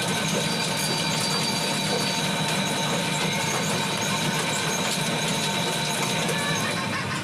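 A motor running steadily: a continuous mechanical drone with a few steady tones in it.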